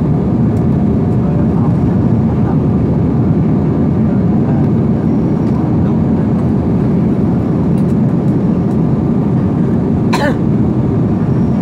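Jet airliner cabin noise heard from a window seat in flight: a steady, loud rumble of engines and airflow. About ten seconds in, one brief sharp sound cuts through it.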